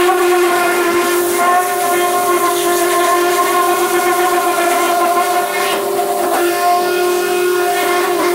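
Pressure washer running with a steady high whine, its wand jet hissing loudly as it blasts water onto the bare steel of a stripped truck cab. The whine wavers briefly a little past the middle.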